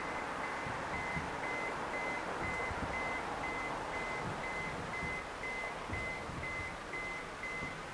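A high beep repeating evenly about twice a second over a steady hiss, with faint low thumps now and then.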